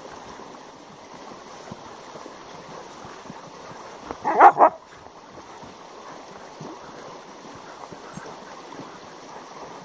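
Siberian husky barks twice in quick succession about four seconds in, a short outburst as it squabbles with another husky over a hole it is digging. A stream rushes steadily underneath.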